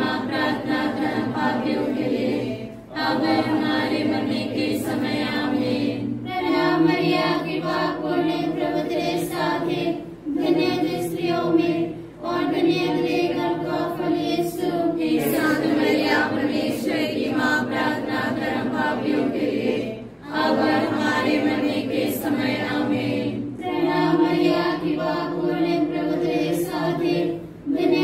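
An unaccompanied group of voices chanting rosary prayers in Hindi in unison, in phrases a few seconds long with short pauses for breath between them.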